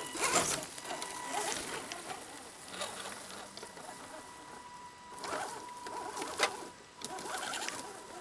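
Electric motor of an Axial SCX10 Dingo RC crawler truck whining steadily while its tyres push through low leafy brush in uneven bursts of rustling.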